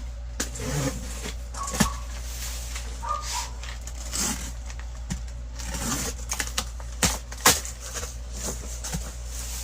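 Cardboard boxes and model-kit packaging being handled: scattered rustles, scrapes and knocks, with sharp knocks a little under two seconds in and again about seven and a half seconds in, over a steady low hum.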